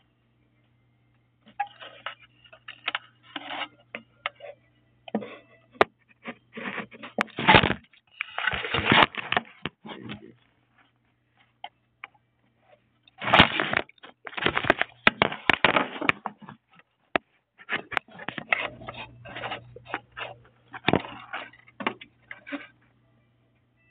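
Irregular crackling, rustling and clicking noises in bursts, with a faint steady low hum underneath.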